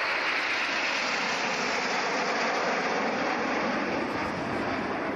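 Steady jet roar of a formation of BAe Hawk jet trainers flying past overhead.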